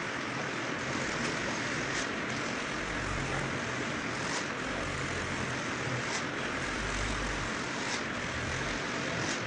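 Steady road traffic noise, with a deeper rumble from about three to eight seconds in, as of a heavier vehicle passing.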